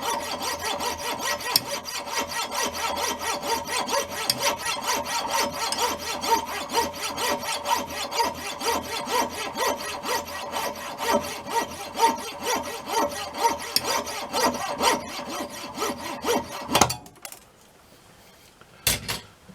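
Hand saw cutting through thin metal bar stock held in a lathe, sawing off a small screw: steady back-and-forth strokes, about three a second, that stop suddenly about 17 seconds in as the cut goes through, followed by a couple of light knocks.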